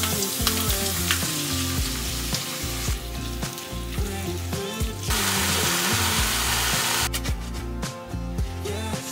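Kimchi sizzling as it is tipped into a hot frying pan and stir-fried with a silicone spatula, over background music. About five seconds in a louder, even hiss takes over for two seconds and cuts off suddenly.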